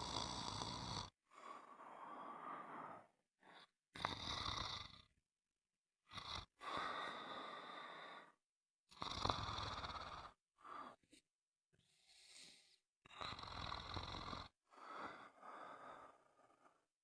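Snoring: a harsh breath about every one to three seconds, each lasting up to about a second and a half, with complete silence between them.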